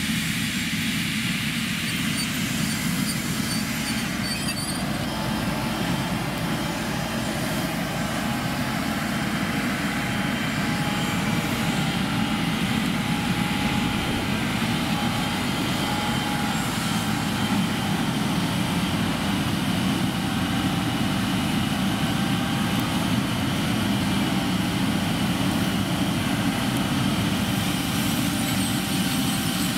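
Fendt 720 Vario tractor's six-cylinder diesel running steadily under working load while it pulls a Väderstad Tempo V8 precision planter. The machinery noise is constant, with faint steady high tones over it.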